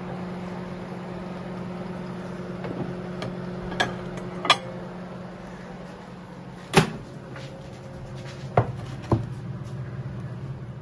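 Microwave oven running with a steady hum, with a few clicks and knocks from handling the door; about seven seconds in a sharp clack as the door is opened, and part of the hum stops there while a lower hum carries on.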